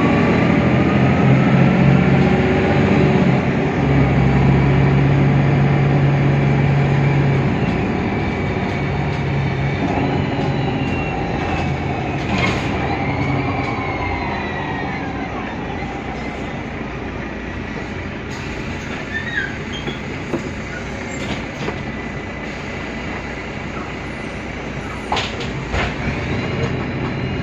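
Mercedes-Benz Citaro city bus running, its OM 906 hLA six-cylinder diesel with Voith DIWA automatic gearbox giving a strong low drone for about the first eight seconds, then quieter as it eases off. Whines rise and fall in pitch throughout, with a few sharp knocks and rattles near the middle and near the end.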